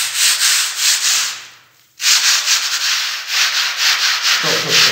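A hand rubbing and scraping a poorly mixed sand-and-cement plaster ceiling, a loud gritty scratching in quick repeated strokes as the render crumbles away under the hand: a sign of plaster short on cement. It stops for a moment about a second and a half in, then starts again at once.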